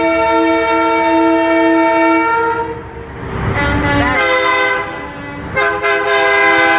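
Train-style air horn on a diesel pickup truck blowing a loud chord of several tones: one long blast that cuts off about two and a half seconds in, then after a swell of engine noise two more blasts with a short break between them.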